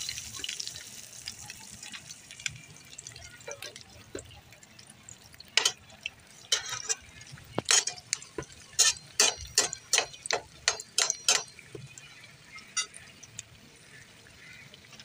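A breadcrumb-coated bread patty deep-frying in hot oil in a steel pan, sizzling steadily. The sizzle is loudest at the start and settles. From about six seconds in, a rapid run of a dozen or more sharp clicks and pops lasts some five seconds.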